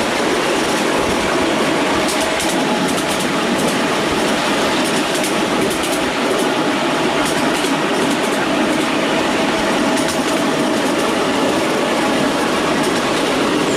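Miniature railway train running along its track, heard from aboard: a steady rumble of wheels on rails, with runs of light clicks as the wheels pass over the rail joints.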